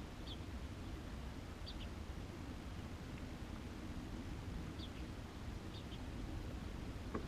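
Steady low rumble with faint, short, high bird chirps, some in pairs, every second or so.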